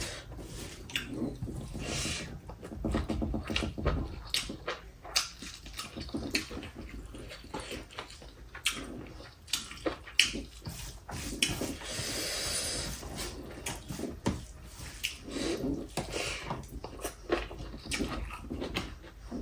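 Close-miked eating: wet chewing and slurping of rice and soup, with scattered sharp clicks and taps, and a longer slurp about twelve seconds in.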